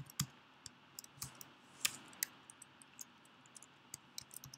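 Typing on a computer keyboard: scattered, irregular keystroke clicks, a few a second, with short pauses between them.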